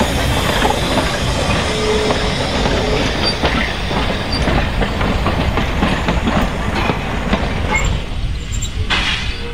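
Hunslet steam tank locomotive Y542 running with its passenger train: a steady low rumble with many irregular clanks and clacks from the running gear and wheels on the track.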